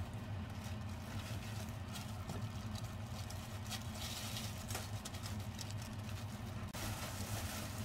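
Disposable plastic gloves crinkling and rustling as hands press rice around a sausage, a string of small crackles over a steady low hum. The crackly hiss turns brighter abruptly near the end.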